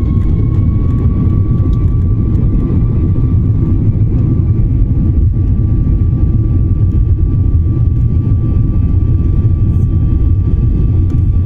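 Jet airliner engines at take-off power heard from inside the cabin: a loud, steady rumble with an engine whine that settles to a steady pitch in the first second or so.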